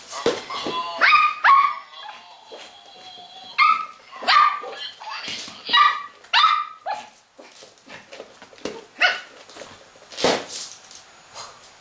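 Small papillon–chihuahua mix dog barking in sharp, high-pitched yaps, in quick bursts for the first seven seconds and more sparsely after, as it attacks a plush toy; a thump about ten seconds in.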